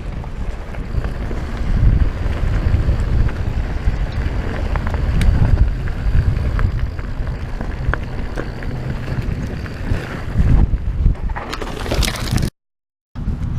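Heavy wind buffeting the microphone of a camera riding along on a mountain bike descent, a dense low rumble with scattered clicks and rattles from the bike on the rocky trail. The sound cuts out completely for about half a second near the end.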